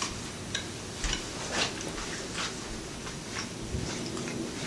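A few faint, irregular clicks and light taps over a steady room hiss.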